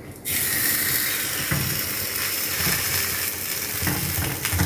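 Potato-stuffed kulcha dough laid on a hot tawa, sizzling steadily; the hiss starts suddenly just after the start.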